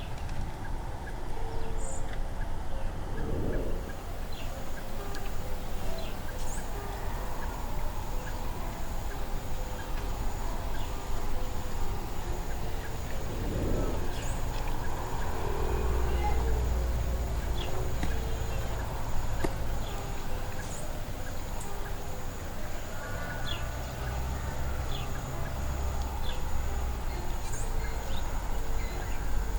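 Riverside ambience at a slow-moving river: a low rumble of wind on the microphone that swells in gusts, a steady high-pitched insect drone, and brief bird chirps scattered through it.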